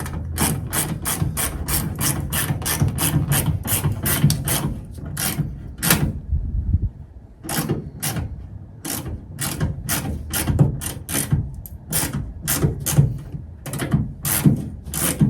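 Ratchet wrench clicking in quick repeated strokes, about three to four a second, with a short pause about six seconds in, as it turns a fastener that holds a mud flap.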